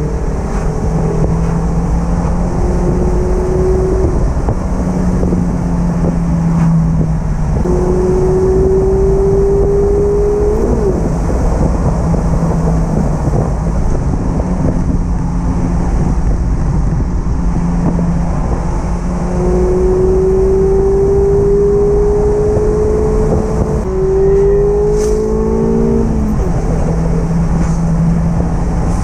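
Mazda MX-5 ND's 1.5-litre four-cylinder engine on its stock exhaust, heard from onboard, accelerating several times with the pitch climbing through the revs and dropping at the gear changes, over steady road and wind noise.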